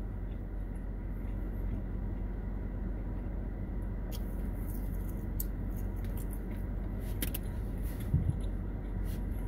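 Steady rush of a car's air-conditioning fan blowing, over a low hum from the idling engine, with a few faint clicks and a brief low thump about eight seconds in.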